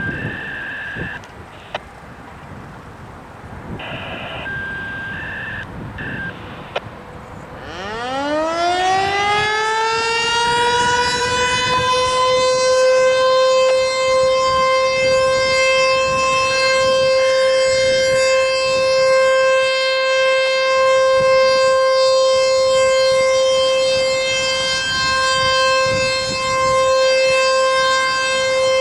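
Background traffic noise, then about eight seconds in an American Signal T-121 outdoor warning siren starts up. Its pitch rises over about four seconds and then holds a steady tone, the Alert signal.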